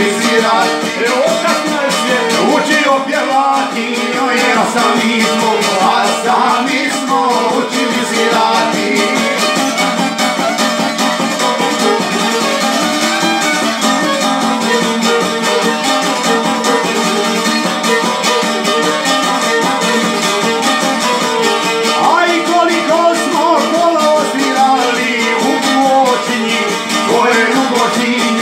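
Violin and a long-necked plucked lute playing a lively folk tune together, with a man singing over them for the first several seconds and again near the end; the middle stretch is instrumental.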